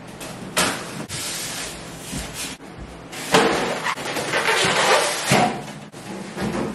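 Cardboard box and styrofoam packing being handled while an air fryer oven is unpacked: cardboard flaps scraping, foam blocks knocking and squeaking, and plastic wrap rustling, with a few sharp knocks, the loudest about three seconds in.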